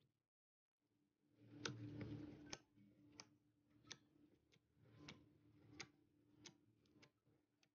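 Faint slime play: a string of small, sharp clicks or pops about every two-thirds of a second, with a soft squishing rustle that is strongest early on and a low steady hum underneath.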